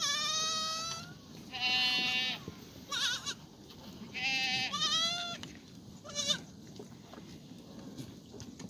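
Black goats bleating: about six short, high calls in quick succession, two of them overlapping from different animals, then a lull.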